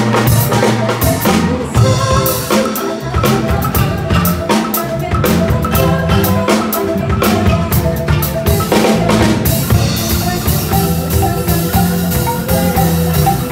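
Live band music: large wooden xylophones played with mallets over a drum kit, with a woman singing into a microphone.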